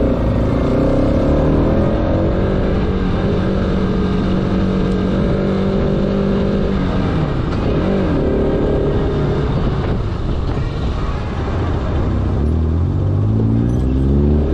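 Bajaj Pulsar RS 200's single-cylinder engine under way, holding steady revs, then falling and rising in pitch as the throttle changes around eight seconds in and again near the end.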